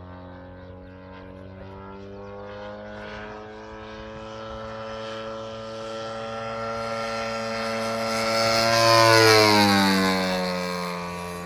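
The ZDZ 90cc two-stroke petrol engine and 28x12 propeller of a 1/5-scale model P-47 Thunderbolt, running steadily as the plane approaches and passes. It grows louder to a peak about nine seconds in, where its pitch drops as it goes by.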